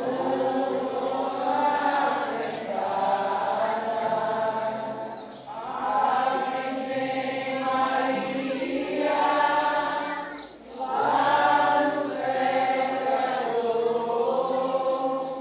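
A group of voices singing a hymn together at Mass, in three long held phrases with short breaths between them about five and ten seconds in.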